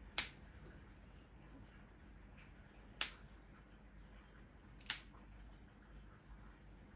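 Nail clipper snipping through a cat's claws: three sharp clicks, a couple of seconds apart.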